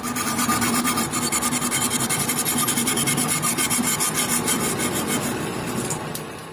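Hacksaw blade sawing through a metal nut clamped in a vise: a steady run of back-and-forth rasping strokes that starts abruptly and fades out near the end.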